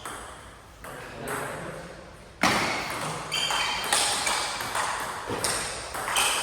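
Table tennis rally: the celluloid ball clicking sharply off the bats and the table, a hit every half second to second, the loudest about two and a half seconds in.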